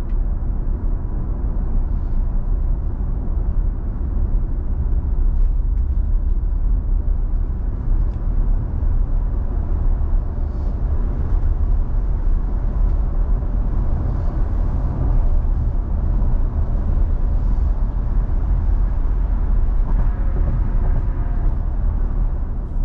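Tesla Model Y driving at highway speed: a steady low rumble of tyre and wind noise.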